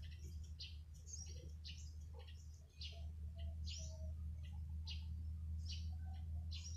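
Small birds chirping, short high chirps about twice a second, over a steady low rumble.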